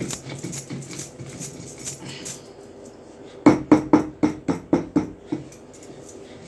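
Dry ginger being ground by hand on a stone grinding slab: soft scraping strokes of the stone roller, then a run of about eight sharp knocks, about four a second, as the pieces are struck and crushed.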